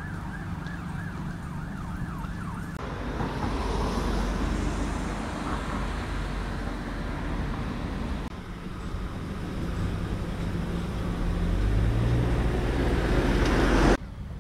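Street traffic with a double-decker bus engine idling, while a siren yelps rapidly, about four sweeps a second, for the first few seconds. After that comes a general roar of passing traffic. Near the end a vehicle's engine note rises as it pulls away.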